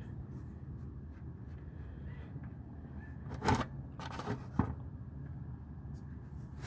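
Metal hand-tool knocks from a wrench being worked on an oil drain plug: two sharp knocks about a second apart midway, over a steady low hum.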